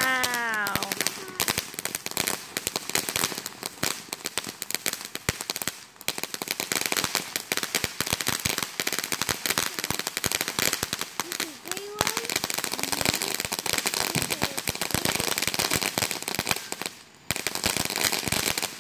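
Ground firework fountains spraying sparks with dense, rapid crackling pops, with a few brief lulls as one fountain dies down and another carries on.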